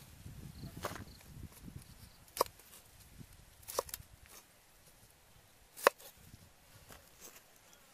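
Knife cutting cauliflower florets on a wooden chopping board: three sharp knocks of the blade hitting the wood, the last one the loudest.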